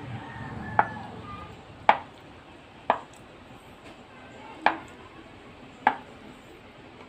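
Kitchen knife slicing down through a block of tofu and knocking on a plastic cutting board: five sharp taps, mostly about a second apart.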